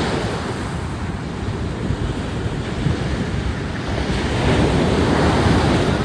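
Sea waves breaking and washing up a sandy beach, a continuous surf roar that swells louder in the last couple of seconds, with wind rumbling on the microphone.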